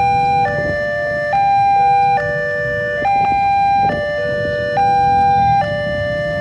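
Electronic warning alarm of a railway level crossing sounding while the barrier is down: a high tone and a lower tone pair alternate evenly, each held a little under a second, repeating steadily. Road traffic rumbles underneath.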